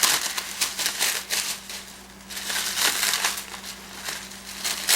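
Plastic packaging crinkling and rustling in irregular bursts as parts are unwrapped by hand, with a brief lull about two seconds in.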